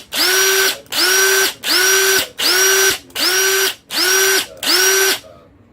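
Craftsman C3 19.2V cordless drill, powered by a Milwaukee M18 6 Ah High Output battery through an adapter, run in short trigger pulls. About seven bursts of roughly half a second each: the motor whine rises quickly to full speed and holds, then cuts off. The run stops just after five seconds in.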